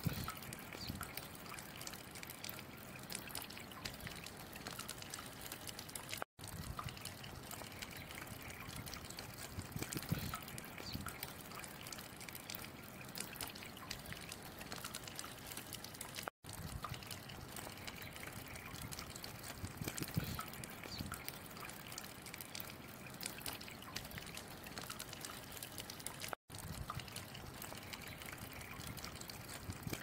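Thin stream of water running from a public fountain's tap and splashing steadily into the basin below, a continuous trickle. The sound drops out for an instant three times, about ten seconds apart.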